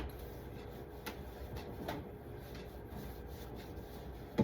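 Faint knocks and light clatter of food containers being handled and set down inside a refrigerator, over a steady low hum.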